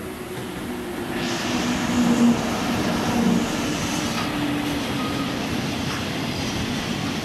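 Two EF64 electric locomotives, double-headed, running through a station at speed with a train of tank wagons: the rail noise swells sharply about a second in as the locomotives come level, then carries on as the steady noise of the tank cars' wheels on the rails.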